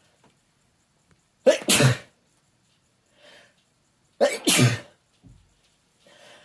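A man sneezing twice, wet, spraying sneezes about three seconds apart, each a sharp intake-and-burst lasting about half a second, with faint sounds between them.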